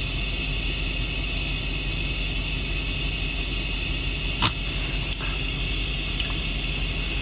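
Steady hum of a car cabin with the engine idling, with a steady hiss over a low rumble and a single short click about four and a half seconds in.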